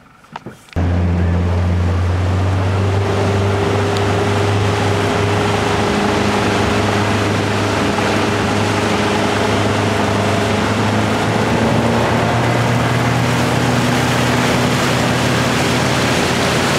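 A motorboat's engine running steadily, heard from on board, with the rush of water and wind over it. It starts abruptly about a second in and holds a steady note.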